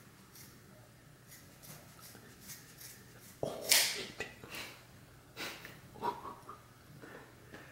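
Stifled human laughter: sharp breathy bursts through the nose and mouth, the loudest about three and a half seconds in, with several smaller ones over the next few seconds.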